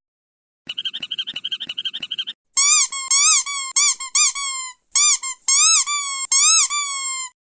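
Squeaky dog toys: a fast run of short squeaks, about ten a second, then from about two and a half seconds in a string of longer pitched squeals that bend up and down, like a rubber squeaker chicken being squeezed.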